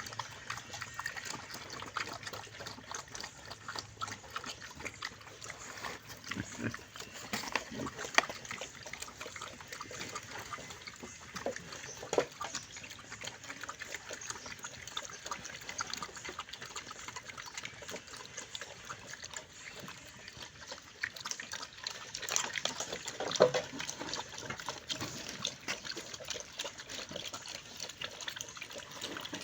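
Wild pigs feeding: a steady, irregular wet chewing and smacking, with a few louder sharp cracks here and there.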